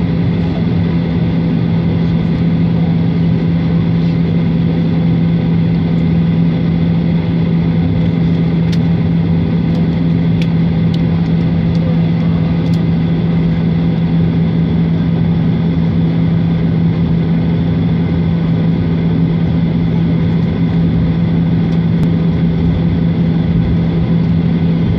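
Cabin noise of a Boeing 737-800 taxiing, heard from a window seat over the wing. Its CFM56-7B turbofans run steadily at low taxi power under a constant low hum, with a few faint ticks in the middle.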